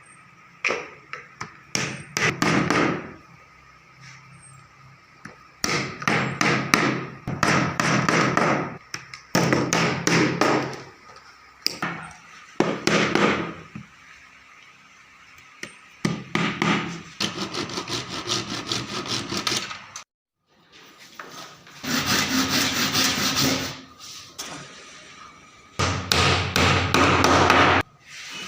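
Hand work on wood: repeated rubbing and scraping strokes of a tool on timber, sawing, rasping or sanding, coming in bursts a second or two long with short pauses between, with a quick run of rapid strokes partway through.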